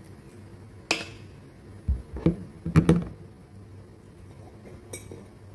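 Hand handling of a sauce bottle and its cap over a stainless steel cooking pot. A sharp click about a second in, then a quick cluster of knocks and taps with short ringing, and one more click near the end.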